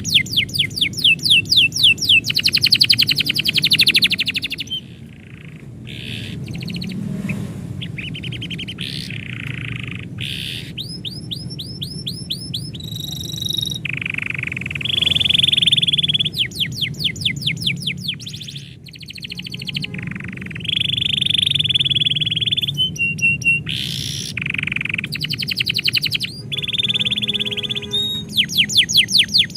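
Canary singing a long varied song: fast trills of rapidly repeated sweeping notes alternating with held buzzy phrases, broken by short pauses.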